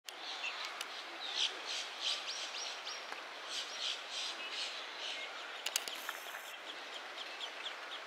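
Wetland bird chorus: small birds chirping and calling over and over above a steady background hiss, with a couple of sharp clicks about six seconds in.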